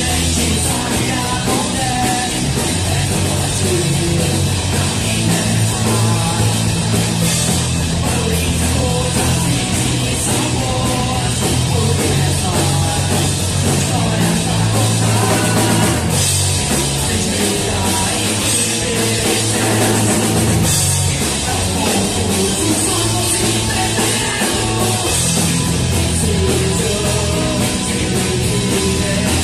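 Live rock band playing: electric guitars, bass guitar and a drum kit, with a singer's vocals over them.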